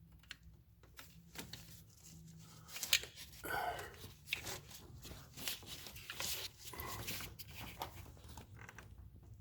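Scattered clicks and scrapes of a metal pick tool and hands working at a plastic fuel injector connector, with a longer rustling scrape about three and a half seconds in.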